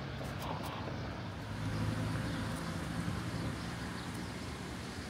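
A vehicle engine's steady low hum under a constant rushing noise, swelling slightly about two seconds in.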